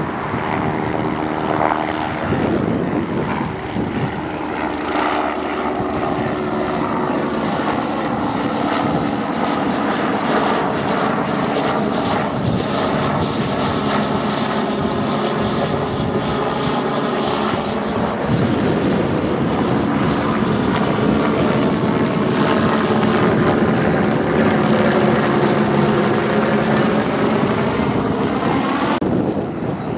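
Agusta A109 helicopter flying low overhead: rotor and twin turbine engines running, with a steady high turbine whine. It grows louder in the second half as it comes closer.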